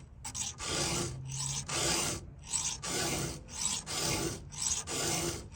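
7/32-inch round file rasping across a 3/8-pitch saw chain cutter in a steady run of short, light push strokes, about two a second: hand-sharpening the tooth.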